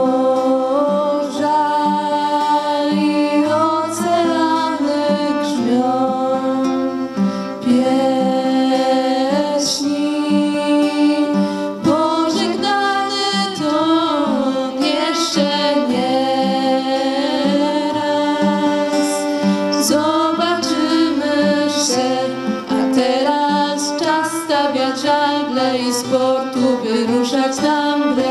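Live acoustic band music: acoustic guitar and violin playing, with female voices.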